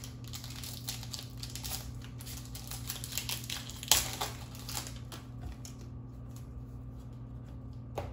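Foil booster-pack wrapper crinkling and tearing as it is pulled open by hand, with a sharp rip about four seconds in. The crinkling then dies down, and there is a light tap near the end.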